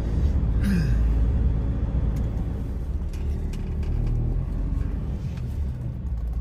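Steady low engine and road rumble heard from inside a vehicle's cab while driving.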